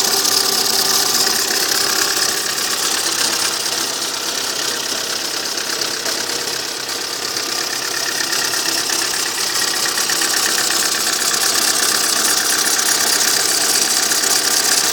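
Opel Astra H's 1.8-litre Z18XER four-cylinder petrol engine idling just after a cold start in hard frost, with a steady high-pitched squeal from the engine. The squeal appears only on cold starts and fades as the engine warms.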